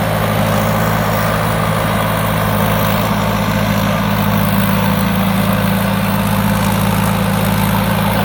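Thai Seng 'Super Jiw' combine harvester's four-cylinder turbo engine running at a steady speed, an even low drone.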